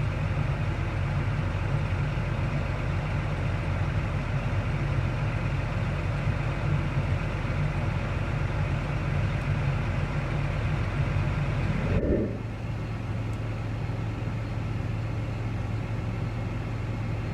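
Tractor engine running steadily while pulling a grain cart. About twelve seconds in, the sound changes abruptly to a quieter, steadier low hum with less hiss above it.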